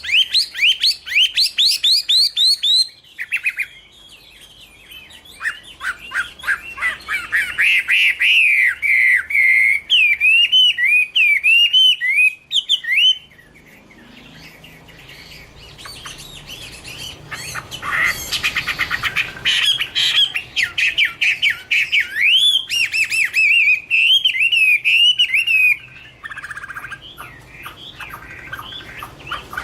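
Chinese hwamei (Garrulax canorus) singing: long runs of rapid, varied, loud whistled phrases that slur up and down, with two short pauses.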